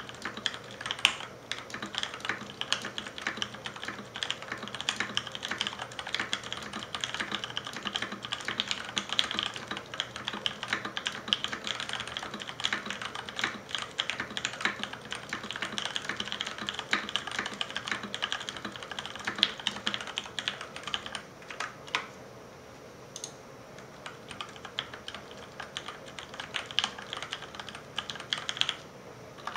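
Typing on a Filco Majestouch 2 TKL mechanical keyboard with tactile Cherry MX Ergo Clear switches and thick PBT keycaps: rapid, steady keystrokes. The typing eases off about two-thirds of the way through to a few scattered keypresses, then picks up again just before the end.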